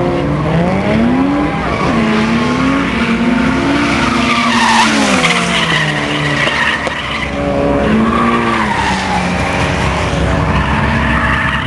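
Drift cars sliding through a corner: engines revving, their pitch rising and falling several times as the throttle is worked, over the hiss and squeal of spinning tyres, loudest about halfway through.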